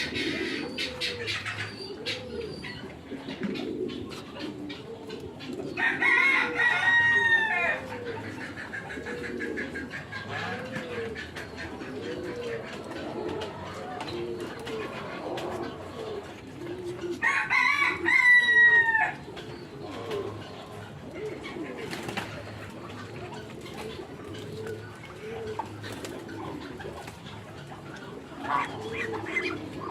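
Farmyard birds calling: a steady run of low, repeated calls, with two louder, longer calls that rise and fall in pitch about six and seventeen seconds in.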